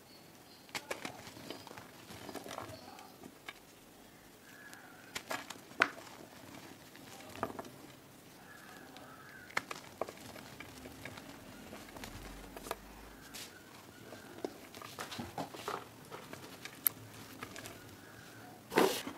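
Reformed gym chalk, cast with cornstarch paste, crushed in a hand and sifted through the fingers: irregular soft crunches and crackles of crumbling chalk with falling powder, the loudest crunch just before the end.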